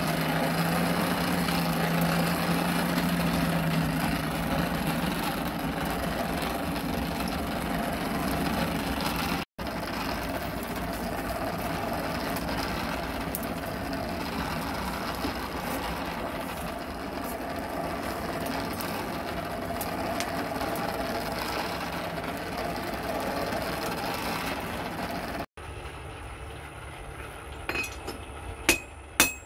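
Coal forge fire running under its air blast: a steady rushing with a low hum at first. Near the end, hammer blows on hot iron begin ringing on the anvil.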